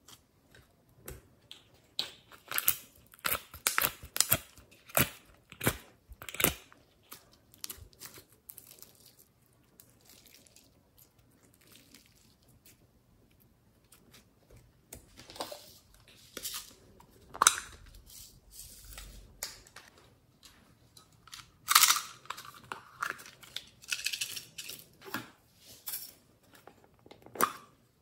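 Soft, sticky slime being pressed and set down by hand in a glass tray, giving runs of small wet clicks and crackles in irregular bursts.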